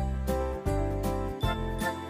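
Background music with a steady beat, held bass notes and higher melody notes.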